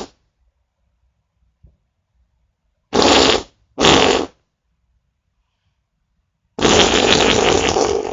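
Fart sounds: the end of one right at the start, two short farts about three and four seconds in, then a long drawn-out one from near the end.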